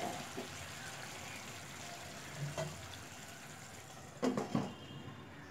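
Raw mango pieces simmering in water in a pan, a faint steady bubbling hiss. About four seconds in, a glass pan lid is set down on the pan with two short clinks.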